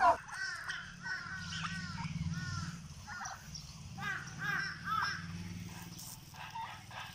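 Domestic turkeys calling: runs of short, arched yelps that come in several bouts, over a low steady hum.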